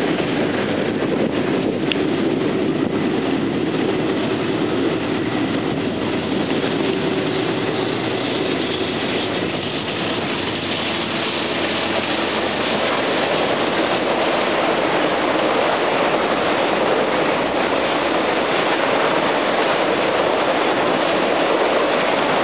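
Two Norfolk Southern GE Dash 9-44CW diesel locomotives passing at speed, their engines giving a steady hum that fades out about ten seconds in. A double-stack container train follows, rolling by with a steady rush of wheel and rail noise.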